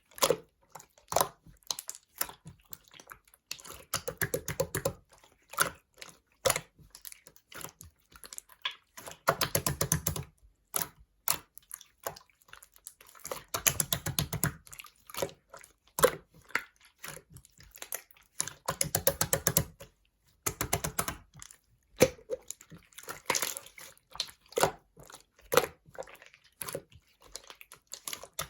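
Clear slime being squeezed and pressed by hand, giving bursts of crackling clicks and small wet pops. The bursts last about a second each and come every few seconds, with quiet gaps between.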